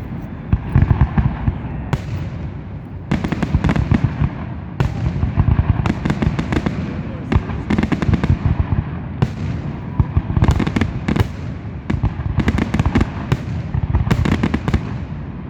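Aerial fireworks bursting in a rapid, nearly continuous barrage of deep booms and sharp cracks, coming in louder clusters every couple of seconds.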